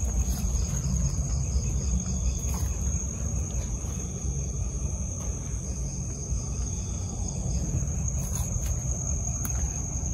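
Crickets chirring in one steady high-pitched drone, over a low continuous rumble of handling noise from the phone microphone as it is carried along.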